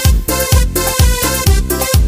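Instrumental break of a cúmbia do beiradão dance song played by a band. It has sustained melody tones over a steady beat of about two strong bass thumps a second.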